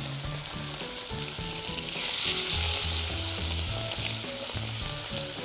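Pieces of beef suan (backbone cut) sizzling steadily as they sear in hot fat in a pressure-cooker pot. The sizzle swells about two seconds in.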